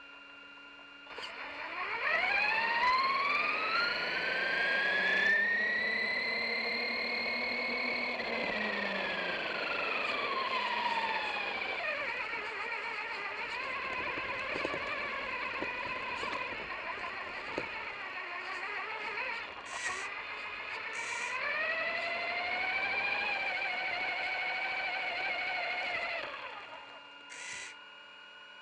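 Electric motor and drivetrain whine of an RC truck, rising in pitch as it speeds up, holding, then falling as it slows. It happens twice, with a rougher stretch between the two runs.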